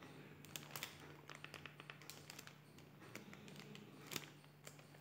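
Near silence: faint room tone with a steady low hum and scattered small clicks and taps.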